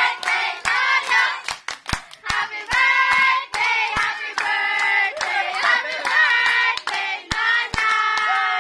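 A group of people singing together, with scattered handclaps.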